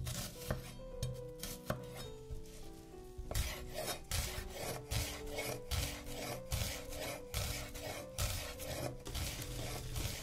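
Chef's knife cutting a peeled onion on a wooden cutting board: a few separate slicing cuts at first, then from about three seconds in steady rapid chopping, about three strokes a second, each a crisp crunch through the onion ending in a knock of the blade on the wood.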